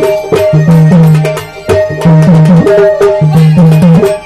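Live gondhal folk music led by hand drums: quick, steady drum strokes with low drum tones that slide down in pitch, and sharp metallic strikes on top.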